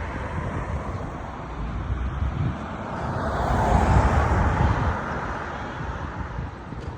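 A road vehicle driving past on the road, its engine and tyre noise swelling to a peak about four seconds in and then fading; no horn sounds.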